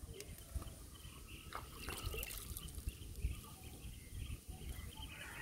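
Faint drips and light trickling of water into a pond at the bank's edge, with a few small clicks.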